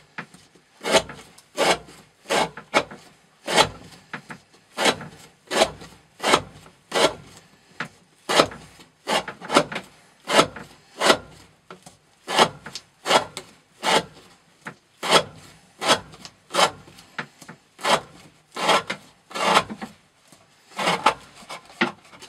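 A knife blade slicing pieces off a thick 20 mm rope, one short rasping cut after another at about a cut and a half each second. The knife is an MG DAMM with N690 steel and a 40° V edge, worked through rope in an edge-retention cutting test.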